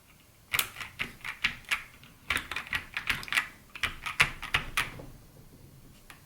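Typing on a custom mechanical keyboard with lubed and filmed Gateron Box Ink Pink linear switches, a polycarbonate plate and MT3 keycaps. The keystrokes come in three or four quick runs with short gaps, stopping about five seconds in.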